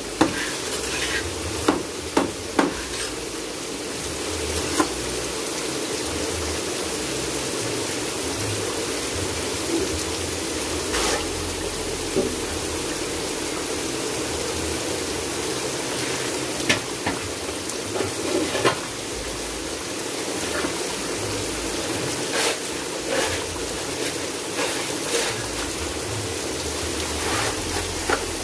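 Steady rain falling, with scattered short knocks and scrapes from hand-making concrete blocks in a metal mold.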